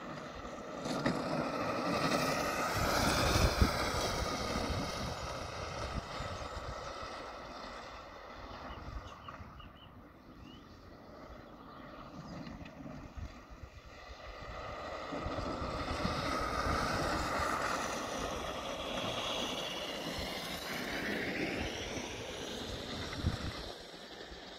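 Electric Bambino kart motor whining as the kart drives past, its pitch rising and falling with speed. It is loudest about three seconds in and again in the second half, with wind rumbling on the microphone.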